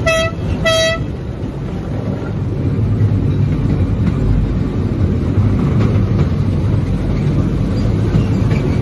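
Miniature train sounding two short horn toots, then a steady low rumble as it runs along its narrow-gauge track.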